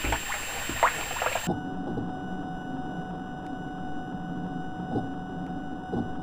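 A few knocks and rattles in the first second and a half, then a steady low mechanical hum with a faint tick about once a second.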